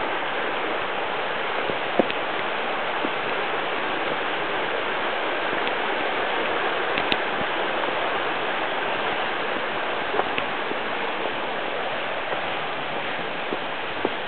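Steady rushing of Latourell Falls, a tall plunge waterfall, and its rocky creek, with a few faint clicks about 2 and 7 seconds in.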